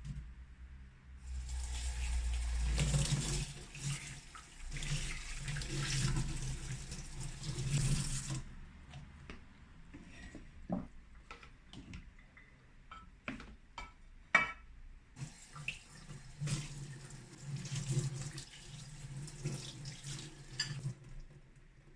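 Water running from a kitchen tap in two spells of several seconds each, with scattered clicks and knocks in the pause between them.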